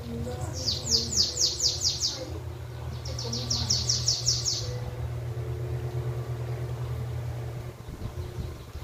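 Caged bananaquit (sibite) singing two quick phrases, each a run of about seven high notes sweeping downward. The second phrase starts about a second after the first ends.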